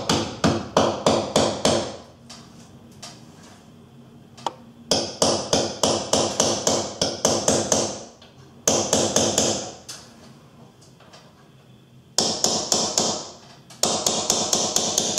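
Hammer tapping a nail punch to sink nails below the face of an MDF picture rail: runs of quick taps, about five a second, broken by short pauses between runs.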